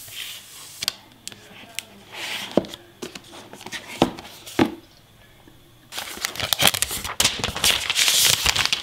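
A new laptop being lifted out of its cardboard box, with light knocks and clicks of handling, then, about six seconds in, the plastic protective sleeve around it crinkling and rustling loudly as it is unwrapped.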